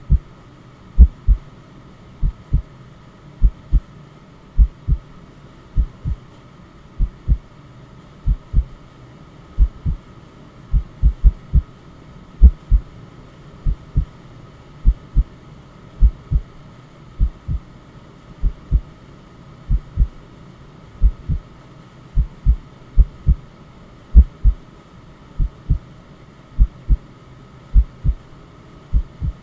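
Heartbeat sound: a steady run of paired low lub-dub thumps, about one beat every second and a quarter. A faint, steady noise bed runs underneath.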